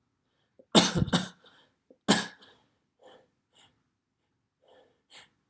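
A person sneezing: two sharp, loud sneezes in quick succession about a second in, and a third about a second later. A few faint, short breaths follow.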